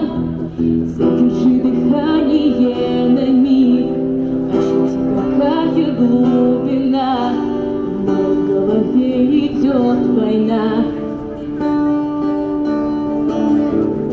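Live street music: a woman singing through a microphone and small amplifier, accompanied by an acoustic guitar.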